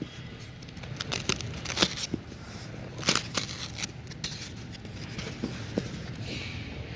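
CNC oscillating-knife foam cutting machine at work: a steady low hum under irregular sharp clicks and crackles.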